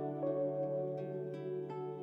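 Soft background music: plucked notes starting every half second or so over held low chords.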